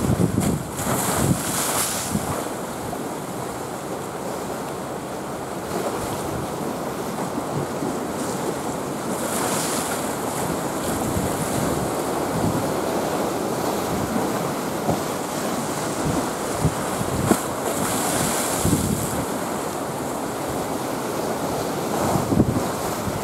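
Small sea waves breaking and washing over shallow water, the hiss swelling as each breaker comes through, a few times over. Wind buffets the microphone.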